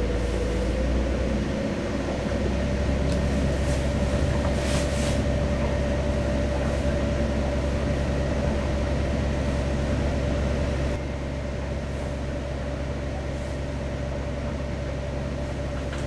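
Steady low drone of a trawler yacht's engine running at slow cruising speed, heard from on board. It drops slightly in level about eleven seconds in.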